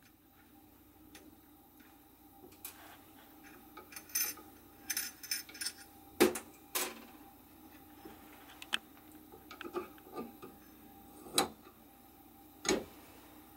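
Scattered small metallic clicks and light rattles as steel LM8UU linear ball bearings are worked off a 3D printer's carriage and handled, with a few sharper ticks along the way.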